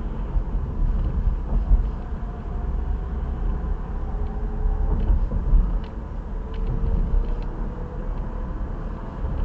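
Cabin noise of a 2023 Chevy Bolt EV on the move: a steady low road-and-tyre rumble, with a faint whine that slowly rises in pitch in the second half.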